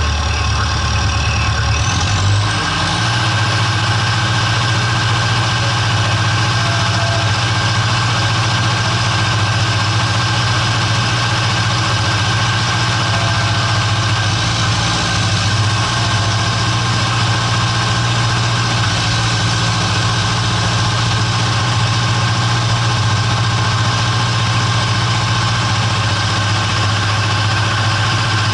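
John Deere loader tractor's engine running steadily, heard from on the tractor as it moves through snow, with a change in its hum about two seconds in.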